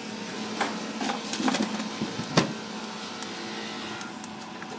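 Steady hum of a soldering fume extractor fan, with a few light clicks and taps from the soldering work, the sharpest about two and a half seconds in.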